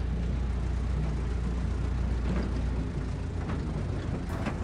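Truck engine idling with a steady low rumble and a few faint clicks in the second half.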